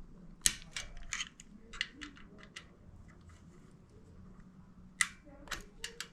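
A hand tool clicking and clinking against the metal bolts of a motorcycle's oil filter cover as they are loosened one after another: a quick string of sharp clicks in the first couple of seconds, then a few more near the end.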